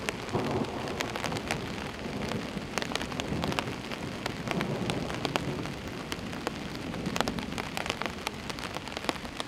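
Steady rain falling on a camping tarp, with many single drops landing as sharp ticks over a constant hiss.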